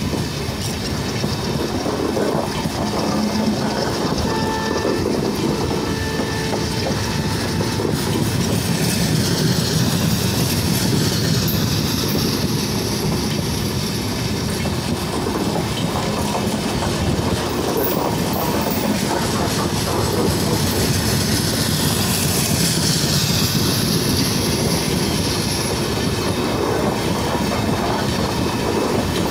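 Passenger train of LHB coaches passing close by at speed: the wheels clatter over the rail joints in a steady, loud rumble.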